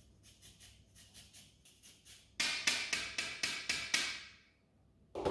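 Lime zest being grated on a fine rasp grater over a stainless steel bowl: quick rhythmic scraping strokes, faint at first, then louder for about two seconds before stopping near the end.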